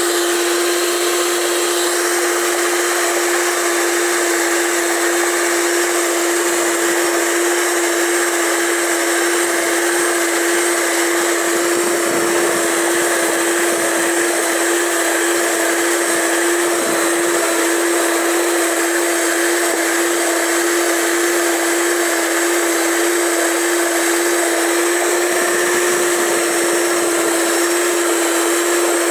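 Electric mixer with twin beaters running at one steady speed, beating margarine, sugar and egg yolks for a cake batter: a constant motor whine with one strong, even hum.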